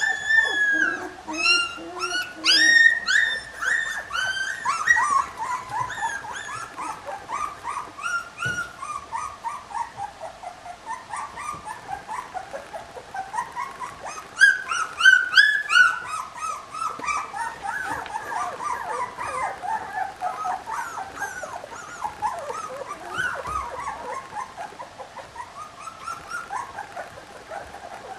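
Three-week-old Lagotto Romagnolo puppies whimpering and squeaking: a near-continuous string of short, high whines, louder at the start and again about halfway through.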